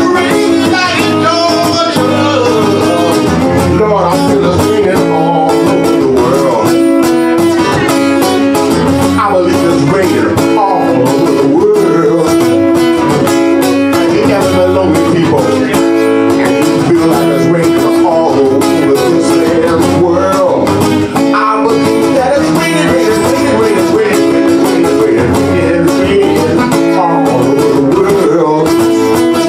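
A man singing live while strumming and picking an acoustic guitar, his voice sliding between notes over steady chords.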